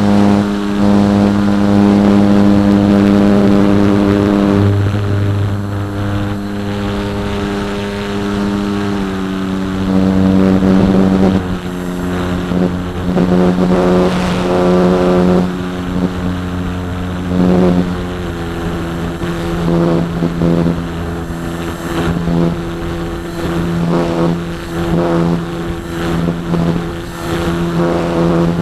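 Electric motor and propeller of a Parkzone Radian model glider, heard from an onboard camera, running with a steady hum and wind rushing over the airframe. The pitch shifts in a few steps in the first half. In the second half the sound surges and dips again and again as the throttle is worked.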